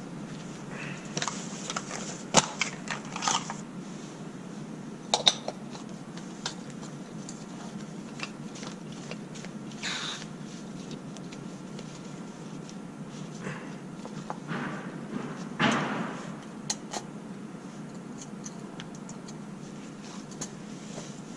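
Hands handling a small camping gas canister in a woven fabric cover and threading a compact folding backpacking stove onto it: scattered clicks, taps and brief fabric rustles over steady low background noise.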